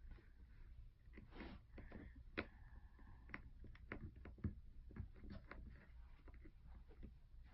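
Faint, irregular clicks and taps of small repair tools against the phone's internal parts and metal plate.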